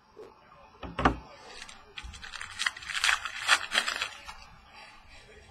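A thump about a second in, then a run of crinkling, crackling and tearing from a trading-card pack wrapper being ripped open and the cards handled.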